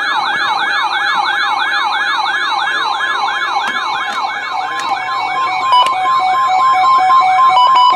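Electronic alert alarm of a weather-warning receiver, sounding a rapid siren-like sweep of about three rising sweeps a second. After about five seconds a second beeping tone joins in, switching between two pitches, signalling an incoming severe weather warning.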